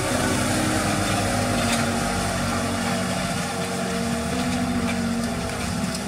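Tractor engine running steadily under load as it pulls a disc plough through dry soil.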